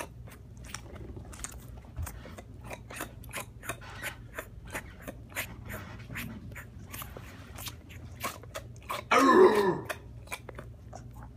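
Dog sucking hard on a rubber Kong toy: a steady run of wet sucking clicks, about three a second. About nine seconds in comes a short, louder voice-like sound.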